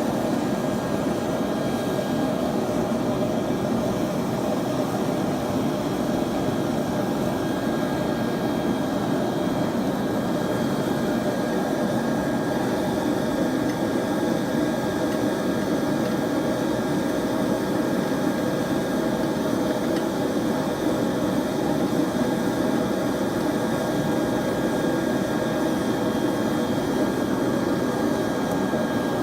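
Forge running with a steady rushing noise and no hammer blows, heating a wrought iron and high-carbon steel billet to welding heat.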